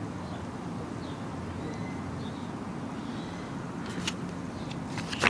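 Steady low background noise with a few faint rustles or clicks about four seconds in and again near the end, from a CD booklet being handled and paged through.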